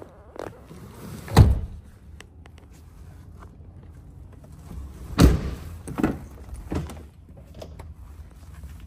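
Doors of a Ford F-250 crew-cab pickup being handled: two heavy thuds, about a second and a half in and about five seconds in, followed by lighter knocks.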